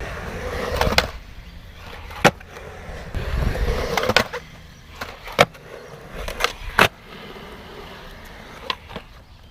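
Skateboard wheels rolling, broken by a handful of sharp clacks of the board striking the ground.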